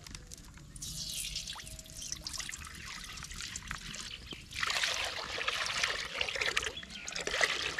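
Water pouring and trickling: a short pour about a second in, then a longer, louder pour from just past the midpoint that carries on.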